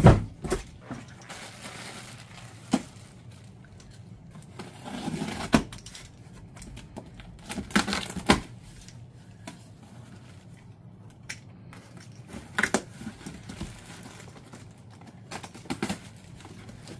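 Items and packaging being handled and rummaged through in a cardboard box: scattered clicks and knocks, with a short stretch of rustling plastic or paper a few seconds in.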